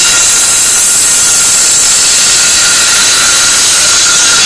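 Ryobi ONE+ 18-volt circular saw, run on 12 volts from a car battery, cutting straight through a piece of 1x3 board: a loud, steady cutting noise over the motor's whine, with no bogging.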